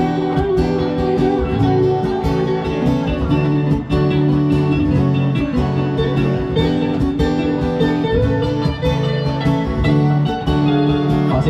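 Guitar-led band music in an instrumental passage, with plucked guitar notes and no singing.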